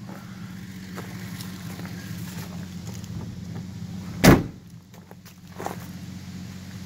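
Car door of a 1965 Chevy II four-door slammed shut about four seconds in, a single sharp bang, followed by a lighter knock a second later, over a steady low hum.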